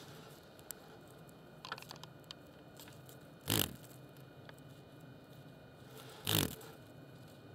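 A cockchafer (May beetle) on its back whirring its wings against a wooden board in two short bursts, a few seconds apart, with a few faint scratches before them.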